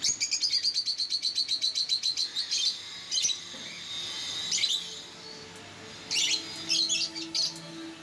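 Small caged parrots chirping: a fast run of high, even chirps for the first two and a half seconds, then scattered single calls, and a cluster of sharper calls from about six seconds in.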